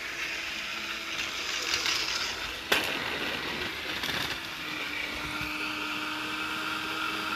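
Motors of modified Plarail toy trains whirring on plastic track, the drill liner's electric-screwdriver motor among them. A sharp clack about two and a half seconds in as the trains meet head-on, a second knock around four seconds as the commuter car is shoved off the rails, then a steady motor hum.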